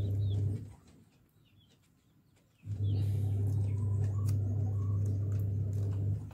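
A steady low hum with several overtones, stopping about half a second in and starting again a couple of seconds later, with short bird chirps over it.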